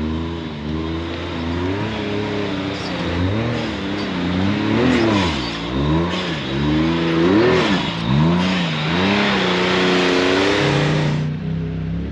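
Side-by-side UTV engine revving up and down over and over, its pitch rising and falling about once a second as the throttle is worked on a climb, over a rushing noise that cuts off sharply near the end.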